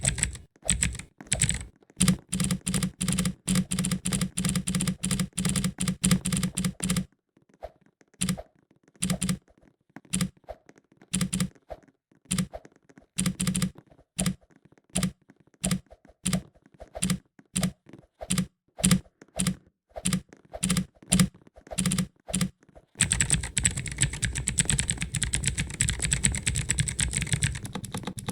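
Keys of a mechanical keyboard tower being pressed and clicking: a fast run of keystrokes, then slower separate clicks, then a dense, continuous clatter of rapid presses in the last few seconds.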